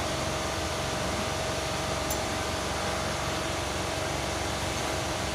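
A steady mechanical hum with a constant mid-pitched whine and an even hiss, unchanging throughout.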